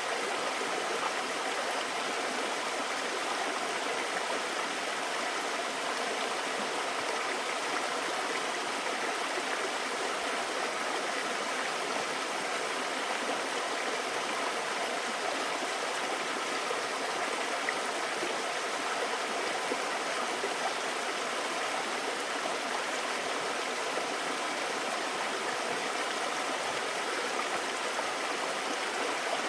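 Mountain stream water rushing and splashing over rocks, a steady, unchanging flow.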